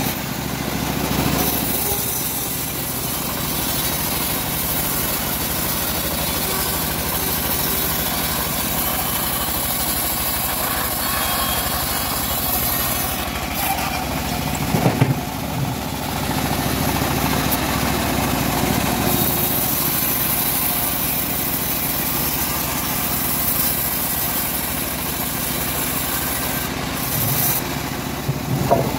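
Engine of a homemade bandsaw sawmill running steadily under the machine's mechanical noise, with a brief clatter about halfway through.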